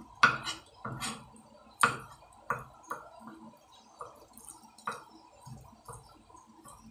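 Kitchen knife chopping boiled chicken liver on a cutting board: irregular knocks of the blade hitting the board, about one or two a second, the loudest in the first two seconds.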